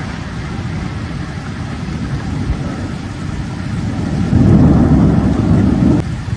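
Storm wind buffeting the microphone as a steady, loud rumble, swelling louder about four seconds in.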